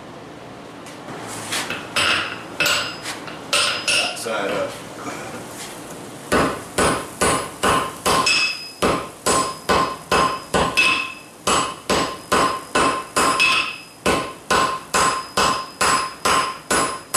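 Hand hammer striking a white-hot bundle of steel cable on a Peter Wright anvil to forge weld it. After a few scattered knocks, the blows come in a steady run of about two and a half a second from about six seconds in, each with a clear metallic ring.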